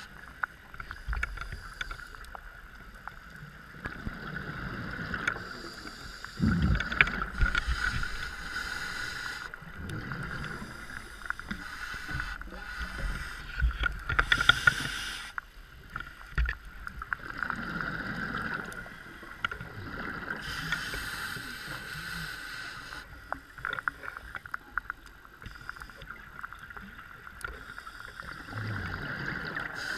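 Scuba diver breathing underwater through a regulator: a hiss on each inhale, then a bubbly rush of exhaust bubbles, repeating every several seconds over a steady faint whine.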